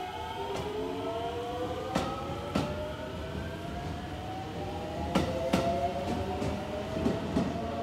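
JR West 207 series electric train accelerating away: the Mitsubishi power-transistor VVVF inverter and traction motors give several whines rising steadily in pitch. Wheels clack over rail joints in two quick pairs, about two seconds in and again near five seconds.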